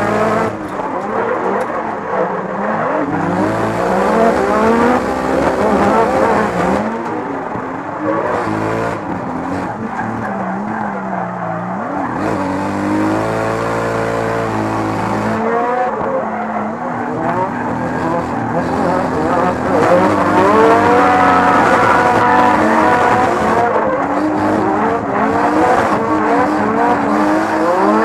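Nissan Silvia drift car's engine revving hard, its pitch climbing and dropping again and again as the throttle is worked through the drift, with tyres squealing; heard from inside the cabin.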